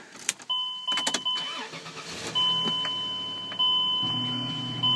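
Chrysler Pacifica's warning chime sounding from inside the cabin, a steady electronic tone that restarts about every second and a quarter, over a low engine hum, after a few handling clicks at the start.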